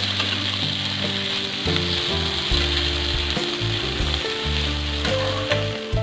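Kwetiau (flat rice noodles) with chicken and mustard greens sizzling steadily in a hot wok as they are stir-fried and tossed with a spatula. Background music plays underneath.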